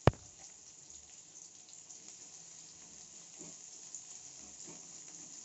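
Sliced onions sizzling faintly in hot coconut oil in a metal kadai as they are stirred with a metal spoon, with a sharp clink of the spoon against the pan right at the start.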